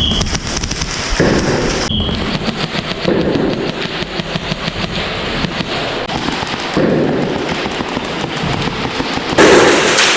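Several airsoft guns firing in rapid overlapping bursts, a dense clatter of shots that gets louder near the end.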